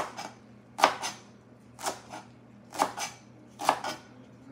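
Kitchen knife slicing through rolled-up cabbage leaves and striking a plastic cutting board, one cut about every second, five cuts in all.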